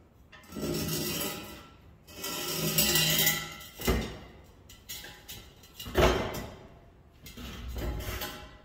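Removed metal exhaust pipe scraping and clanking, the pipe ringing as it is dragged and set down, with two sharp clanks about four and six seconds in, the second the loudest.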